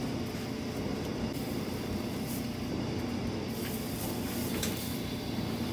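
Dry hay rustling and crackling as a clear plastic container is scooped through a bin of loose hay, with a faint tick or two from the plastic.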